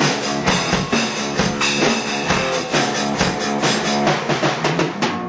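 Instrumental rock music intro with electric guitar and drum kit, before the vocals come in.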